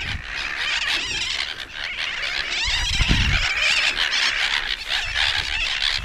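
A large colony of nesting seabirds disturbed from their nests, hundreds calling at once in a dense, unbroken chorus of high, harsh cries. A low rumble about three seconds in.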